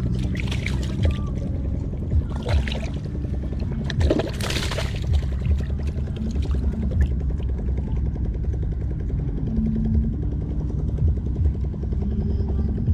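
A steady low engine rumble, with a few brief splashing or pouring noises in the first five seconds.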